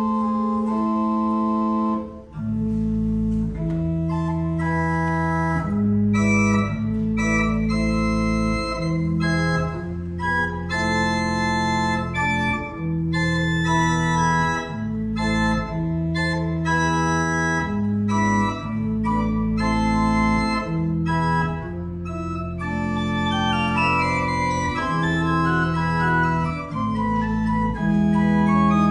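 Berghaus pipe organ (Op. 72, 1988) playing sustained full chords over a deep pedal bass, the harmony changing every second or two. There is a short break in the sound about two seconds in, and a run of moving upper notes near the end.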